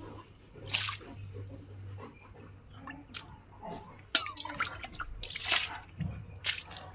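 Water splashing in several short bursts as it is scooped and poured out with a cooking pot, with dripping and small knocks in between.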